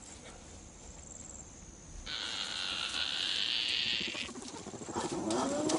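An insect buzzing steadily for about two seconds, starting and stopping abruptly. Near the end an animal calls, its pitch sliding up and down.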